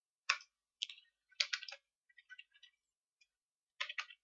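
Computer keyboard keystrokes clicking as a short terminal command is typed: one sharper keystroke about a third of a second in, then uneven little runs of lighter key clicks.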